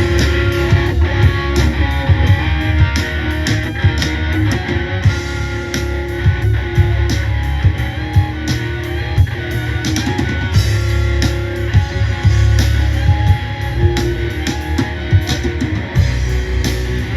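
Instrumental break in a rock song: guitar playing over a steady drum-kit beat.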